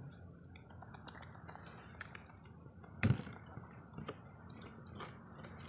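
A single dull thump about three seconds in, with a few light ticks scattered before and after it, over a faint background hiss.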